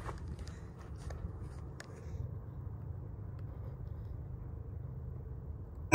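Low steady outdoor rumble with a few faint ticks, then at the very end a single sharp crack from a .22 rifle shot.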